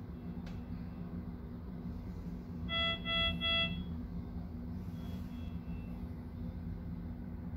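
Comen C80 patient monitor sounding an alarm: a burst of three short, evenly spaced beeps about three seconds in, the three-pulse pattern of a medium-priority alarm, over a steady low room hum. The screen's yellow alarm message reads as an SpO2 finger-off alert, with no sensor on a patient.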